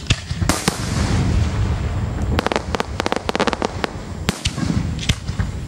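Aerial firework shells bursting: a few sharp bangs, then a quick run of crackling reports in the middle and two more bangs near the end, over a low rumble.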